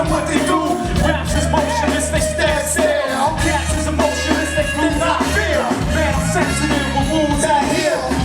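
Loud music with a heavy bass line and a singing voice.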